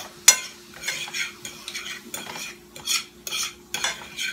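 Metal fork scraping and clicking against a nonstick skillet in short irregular strokes as chopped bell peppers and onions are stirred, over a faint sizzle of the vegetables frying in butter.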